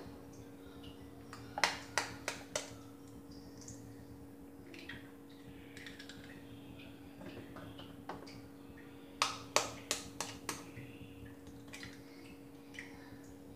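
Raw eggs being cracked open: a quick run of four sharp taps as one shell is knocked open, then, past the middle, a second run of five or six taps for the next egg. A faint steady hum runs underneath.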